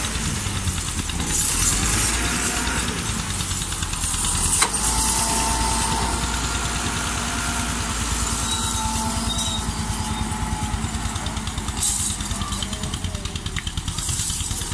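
Tractor diesel engines running under load as a Fiat Ghazi 480 stuck in soft ground is towed out by a second tractor on a rope. There is one sharp knock about four and a half seconds in.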